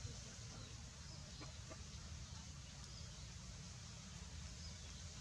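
Low, steady background noise with a few faint, short high chirps scattered through it.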